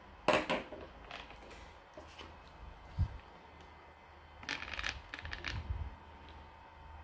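Sharp metallic clatter of hand tools (pliers and a small driver) being set down on a wooden table. It is followed by a knock and then a quick run of plastic clicks and rattles as the RC truck chassis is lifted and handled.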